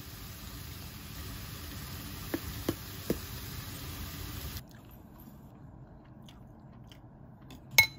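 Vegetables sizzling steadily in a nonstick wok, with three short pops a little over two seconds in. About four and a half seconds in the sizzle gives way to a quieter room with a few faint clicks of tableware and one sharp click near the end.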